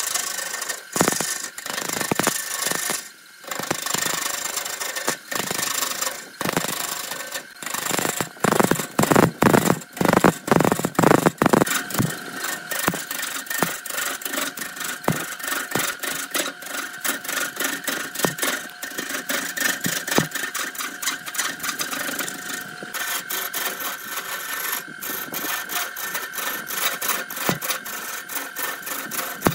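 Turning gouge cutting into an epoxy resin and bamboo blank spinning on a wood lathe: a rough, continuous scraping chatter as the tool peels off shavings. It is loudest and most broken up about eight to twelve seconds in, and a steady high whine runs under it from about twelve seconds in.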